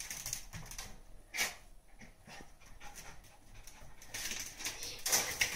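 A small dog sniffing and panting at close range, with scattered light clicks. A brief louder rustle comes about a second and a half in, and a noisier stretch near the end.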